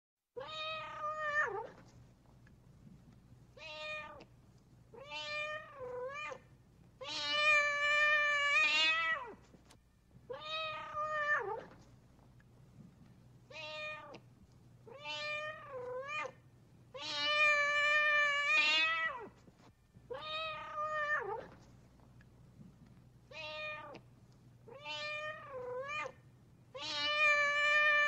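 Domestic cat meowing in a recorded sequence looped as a ringtone: a single meow, a short one, two quick meows and a longer drawn-out meow, the pattern repeating about every ten seconds, three times over.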